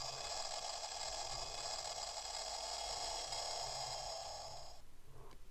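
Toy astronaut helmet's built-in sound effect playing through its small speaker: a faint, steady hiss with a few steady tones in it, cutting off abruptly near the end.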